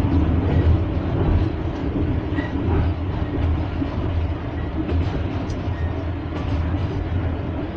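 Passenger train running along the line, heard from inside the carriage: a steady low rumble of wheels on the rails, with a few faint clicks.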